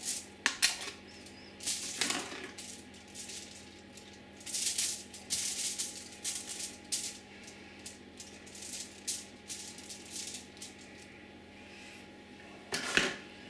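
Aluminium foil crinkling and a knife scraping as butter is spread onto fish fillets laid on the foil: irregular short rustles and scrapes, with a louder crinkle near the end.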